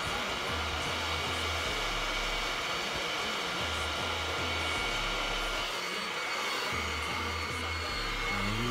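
Steady hiss of a torch lighter's flame held over a hookah bowl to light it, with music's pulsing bass line underneath.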